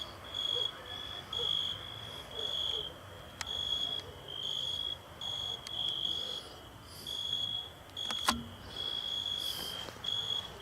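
Crickets chirping: a steady high-pitched trill broken into repeated pulses about twice a second. One sharp click sounds about eight seconds in.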